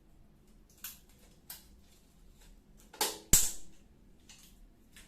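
Handling noises: two faint clicks, then a sharp double knock about three seconds in.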